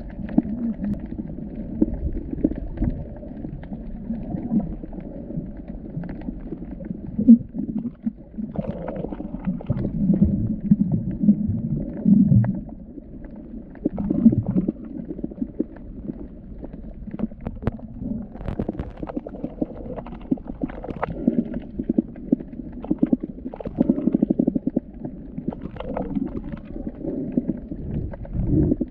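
Muffled underwater rumbling and gurgling of water moving around a submerged camera while snorkeling. Scattered faint clicks are heard through it.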